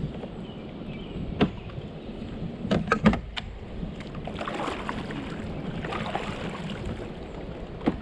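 Knocks and clatter on a kayak on the water: a single knock, a quick cluster of clicks about three seconds in, and another knock near the end, with two swishes of water in between.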